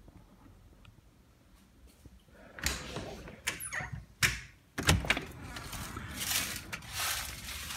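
A back door being opened: after a quiet start, a run of sharp clicks and knocks from the latch and frame, the loudest a little past the middle, mixed with rushing noise as it swings or slides open.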